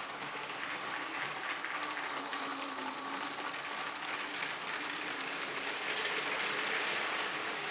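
Motorised Lego trains running on plastic track: a steady rattle and clatter of small plastic wheels over the rails with a faint motor whir, growing a little louder toward the end.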